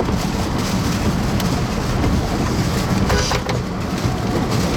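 Steady low rumble of a car's road and wind noise heard from inside the cabin, with a few faint ticks against the car.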